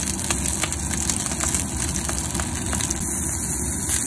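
Salmon fillet sizzling in hot oil in a nonstick frying pan, a steady hiss with frequent small pops and crackles of spitting fat.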